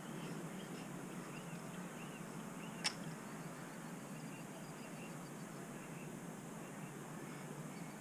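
Steady outdoor background noise with faint, repeated high chirps and one sharp click about three seconds in.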